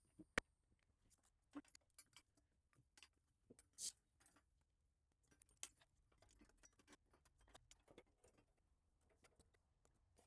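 Near silence with scattered faint clicks and knocks, the sharpest about half a second in, and a short scrape near the middle: the replacement coolant pipe being fed into place through the engine bay.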